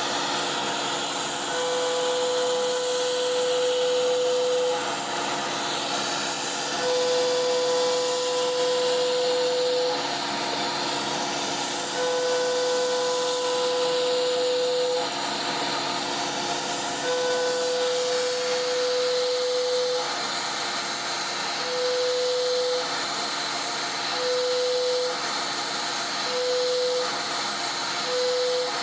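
CNC router spindle with a three-flute bit cutting a pocket in repeated adaptive passes: a steady high hum sounds while the bit is in the cut and drops out between passes. The passes last about three seconds at first and shorten to about a second near the end, over a continuous hiss from the machine.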